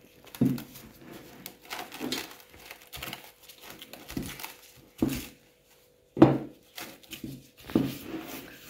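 Plastic cling film being stretched and pressed over a glass mixing bowl by hands in plastic gloves: irregular crinkles, rustles and light knocks against the bowl, the loudest about six seconds in.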